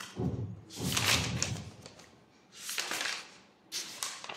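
Pages of a paper textbook being turned, several rustling flips in a row.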